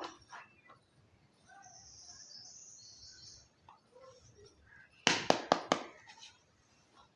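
Small plastic toy kitchen pieces handled during unboxing: light clicks and a short high rustle, then a quick run of five or six sharp plastic clacks about five seconds in, the loudest part.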